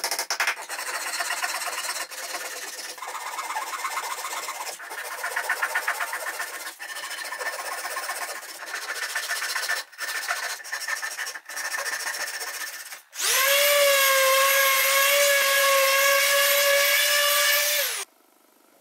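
A thin flush-cut hand saw rasps through wooden dowels, trimming them flush with a pine board in runs of strokes with short pauses. Near the end a power tool motor runs at a steady pitch for about five seconds, louder than the sawing, and drops in pitch as it stops.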